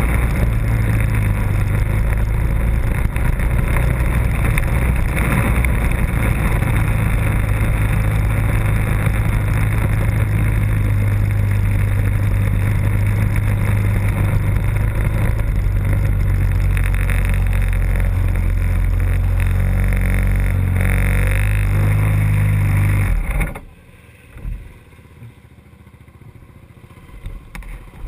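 Off-road race machine's engine running on board at low, steady speed, its pitch dropping lower twice as it slows, then switched off suddenly about 23 seconds in; after that only a few faint knocks.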